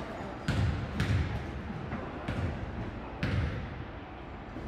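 Basketball bounced several times on a hardwood gym floor, a few separate thuds as a player dribbles at the free-throw line before shooting.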